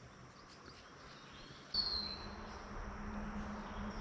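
Birds chirping in short, falling high whistles over steady outdoor background noise, which jumps louder about two seconds in.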